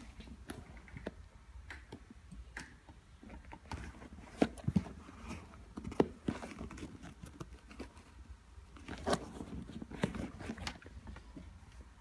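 Handling noise of an Air Jordan 12 sneaker being turned over in the hands: irregular soft knocks and rustles of the shoe's upper, laces and tongue, with a few sharper knocks now and then.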